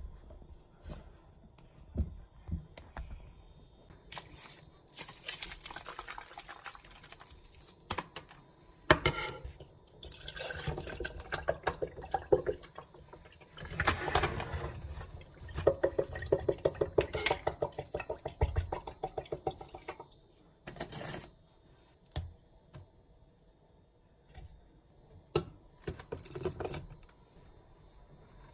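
Irregular small clicks and taps, with several stretches of rustling handling noise, one holding a fast run of ticks.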